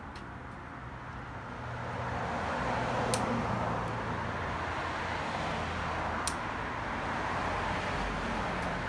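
Road traffic noise: a steady, even noise that grows a little louder about two seconds in and holds, with two short clicks.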